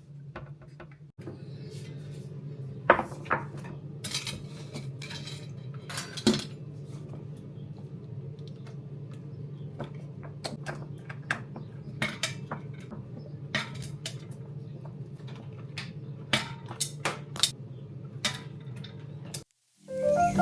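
Kitchen clatter: scattered clinks and knocks of dishes and utensils over a steady low hum. The sound cuts off suddenly near the end.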